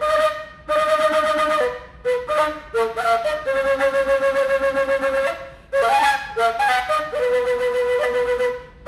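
Colombian gaita, a cane duct flute, played solo: a breathy, whistly melody of stepping notes in short phrases, with brief breaks between them. The playing stops right at the end.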